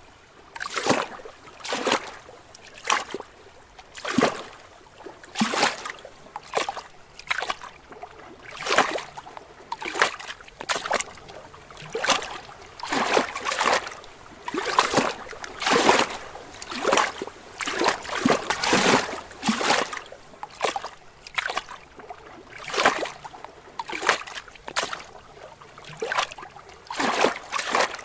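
Small lake waves lapping and splashing against rocks, with an irregular run of short slaps about once a second over a soft watery hiss.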